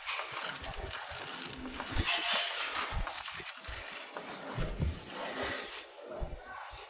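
Motorcycle drive chain being scrubbed by hand during cleaning: uneven rubbing and scraping strokes with a few light knocks, loudest about two seconds in.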